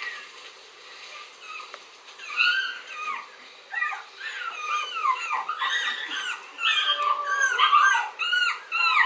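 A dog whining: a run of short, high-pitched whimpers and squeals that begins about two seconds in and grows faster and louder toward the end.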